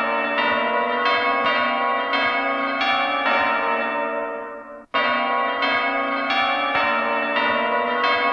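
Church bells ringing a peal, struck in quick succession, heard as a sampled passage in a hardcore drum'n'bass mix. About five seconds in the peal fades and cuts out for a moment, then resumes abruptly at full level.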